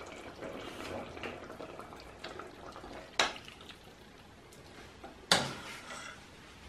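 Quiet bubbling of a chicken and vegetable stew simmering in a pot, with two sharp knocks about three and five seconds in, the second louder.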